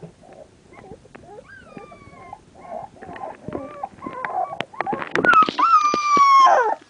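Three-week-old American Staffordshire Terrier puppies whimpering and squeaking in short falling squeals, then one long, loud high whine about five seconds in that drops in pitch as it ends.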